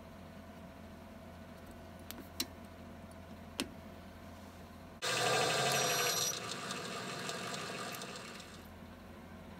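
A few light clicks as a small brass part is set in a lathe chuck. About halfway a metal lathe comes in suddenly, running with a countersink cutting into the end of a brass model-steam safety valve body, loudest at first and easing off near the end.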